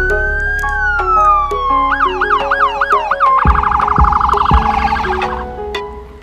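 Electronic emergency-vehicle siren cycling through its tones: a slow wail rising and falling, then a yelp of about three sweeps a second, then a rapid warble that cuts off about five seconds in. Background music with piano-like notes plays throughout.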